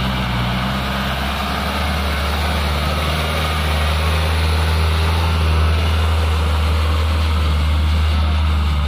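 Hino Dutro light dump truck's diesel engine pulling hard under load, a steady deep drone that grows a little louder through the middle as the loaded truck climbs past and drives on up the dirt road.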